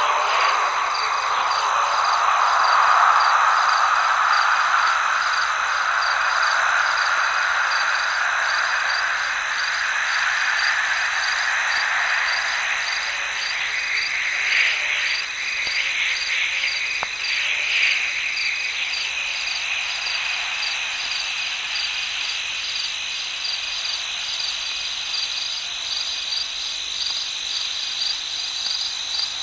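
Wordless ambient passage of a record played from vinyl: a steady, high, rapidly pulsing chirr over a broad wash of sound that slowly rises in pitch through the first half.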